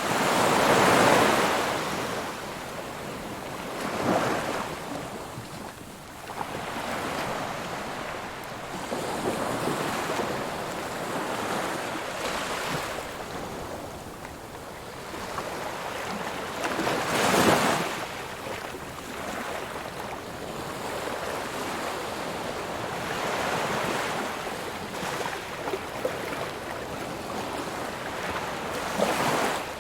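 Ocean surf: a continuous wash of waves with separate breakers swelling and falling back, the loudest about a second in and about halfway through, with smaller ones around four seconds and near the end.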